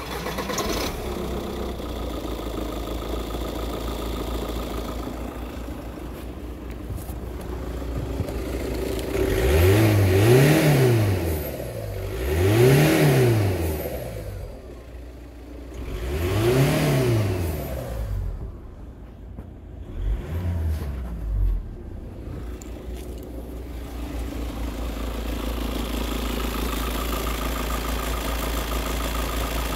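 Skoda Octavia 2.0 TDI BKD four-cylinder turbodiesel idling, then revved three times in a row, each rev rising and falling back. A shorter blip follows, and the engine settles back to a steady idle.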